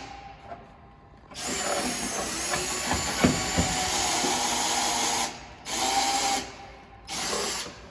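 Cordless drill running in three bursts, one long and two short, with a steady whine and a couple of knocks partway through the long run. It is widening the camera hole in a minivan's tailgate handle trim.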